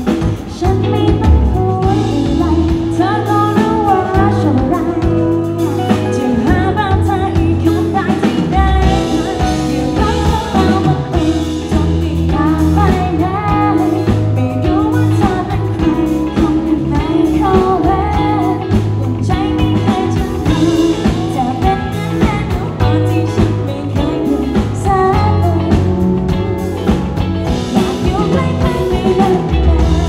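Live pop-rock band: a woman singing into a microphone over a drum kit and electric guitar, amplified through PA speakers.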